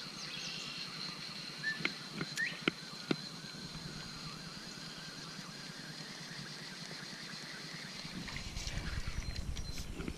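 Quiet outdoor ambience over water: a steady high-pitched buzz with a few sharp clicks and short chirps about two to three seconds in. Low rumbling noise builds in the last two seconds.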